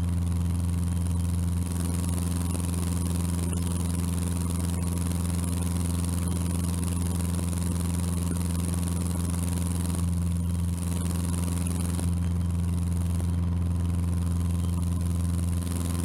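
Cessna 150's four-cylinder Continental O-200 engine and climb propeller droning steadily at climb power, one even unchanging hum.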